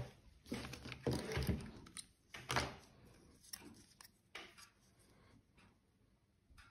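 Handling noise from hands picking up and turning a hard plastic night-vision head-mount adapter: a few short rubs and knocks, loudest in the first three seconds and fainter after.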